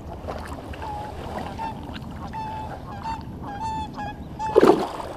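A flock of geese honking in short, repeated calls throughout. Near the end comes one loud splash of water as a bass is released by hand.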